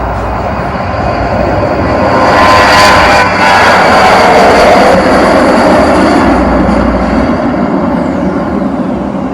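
Jet airliner's engines passing close by: a loud roar with a whine swells to its peak two to five seconds in, then slowly fades.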